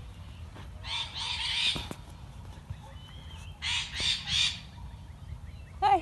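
Harsh parrot squawks: one longer call about a second in, then three short squawks in quick succession a little past the middle.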